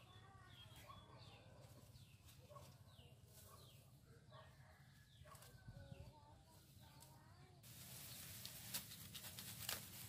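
Faint chicken calls, short falling notes repeated a few times a second. About three-quarters of the way through, a hiss of leaf rustling comes in with a couple of sharp crackles as lemongrass is handled up close.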